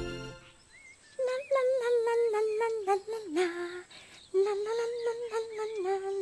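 A high voice humming a tune in two long, slightly wavering phrases with a short break between them.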